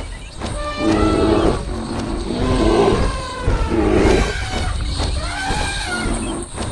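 Many animal sound effects layered on top of each other: roars and pitched calls that rise and fall, overlapping without a break.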